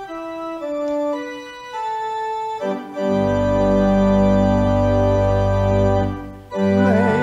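Church organ playing a hymn introduction: a single line of sustained notes stepping mostly downward, then full held chords with deep bass coming in about three seconds in, a brief break, and a new chord near the end.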